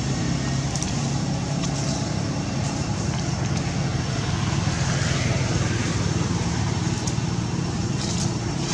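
Steady low hum of an engine running at an even speed.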